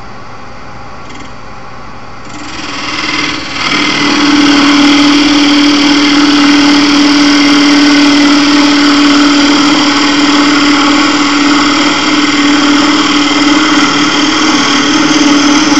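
Wood lathe running, then a turning tool cutting into the spinning wood: a quieter machine hum gives way, between about two and four seconds in, to a loud, steady cutting noise with a strong humming tone.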